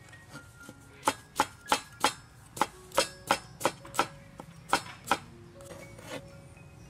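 Cleaver chopping through cucumber strips onto a wooden cutting board: about a dozen quick chops, roughly three a second, starting about a second in and stopping about five seconds in. Soft background music runs underneath.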